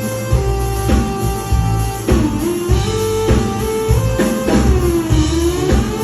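Full band playing live: drum kit and bass keeping a steady beat under a sustained lead line that slides down and back up in pitch twice.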